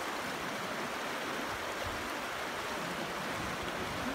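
Fast, shallow river rushing over stones and riffles: a steady, even rush of water.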